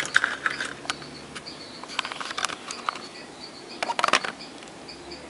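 Clicks, knocks and rattles of objects being handled at a workbench, in short clusters near the start, around two seconds in and around four seconds in, over a faint, high-pitched pulsing tone.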